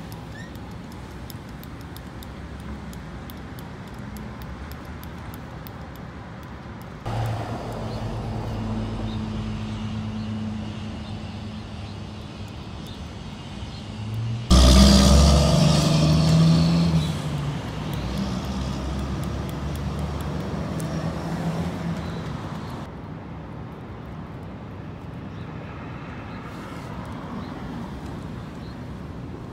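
Street traffic: a steady background of passing cars, with engine noise swelling about a quarter of the way in and one loud vehicle passing close about halfway through, then fading away.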